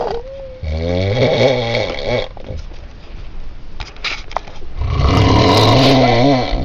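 A person snoring: two long snores, each about a second and a half, the second one louder.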